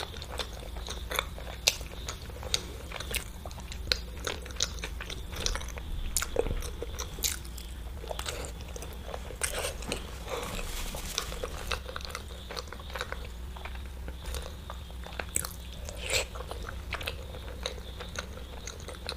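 Close-miked mouth sounds of someone eating hard-boiled eggs dipped in red chili sauce: chewing and biting with frequent sharp clicks, over a steady low hum.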